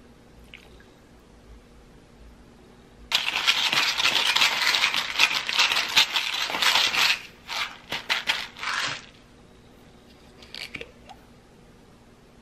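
Hand pepper mill grinding peppercorns: a dense gritty crunch of fast clicks for about four seconds, then a few shorter twists.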